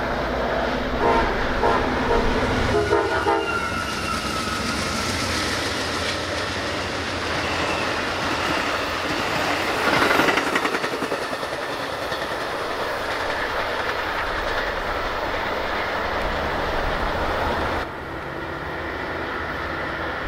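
Metra commuter train passing close on the nearest track: a few short horn blasts in the first few seconds, then the steady rumble and clatter of the wheels on the rails, loudest about halfway through. The noise drops off suddenly near the end as the train clears.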